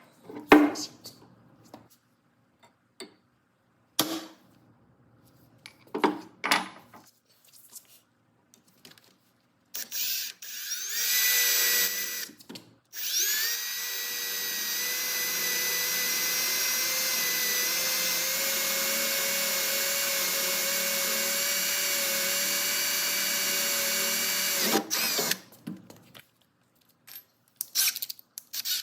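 Scattered knocks and clicks of parts being handled, then a power drill spins up about ten seconds in and runs at a steady speed for roughly twelve seconds before stopping, followed by a few more knocks.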